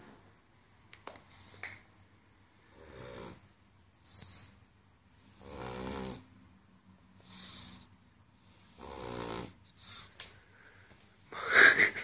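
A pug snoring while dozing upright: three rasping snores about three seconds apart, with softer breaths out between them. Near the end there is a sudden louder noise from the dog, the loudest sound here.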